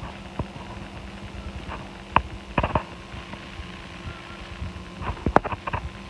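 A few light clicks and knocks, bunched together near the end, over a steady faint hum.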